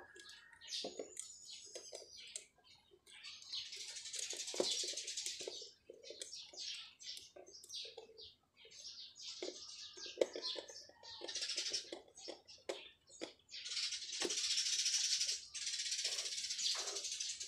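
Irregular small clicks and scraping of wires and a screwdriver at the relay socket's terminal screws, with a few bird chirps.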